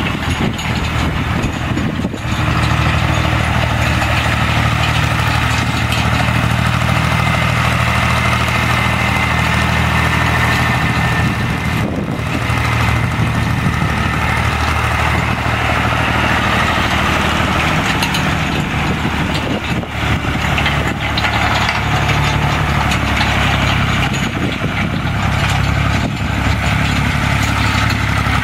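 Massey Ferguson 135 tractor engine running at a steady speed as it tows a chain pasture harrow over grass, with a few brief breaks in the sound.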